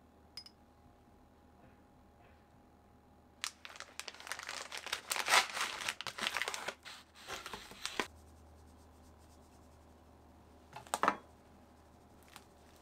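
Kitchen packaging crinkling as it is handled: about four seconds of dense rustling, then a second short crinkle a few seconds later.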